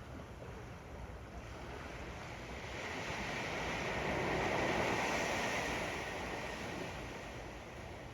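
Ocean waves washing up on a sand beach, one wave swelling to a peak about halfway through and then receding, with some wind on the microphone.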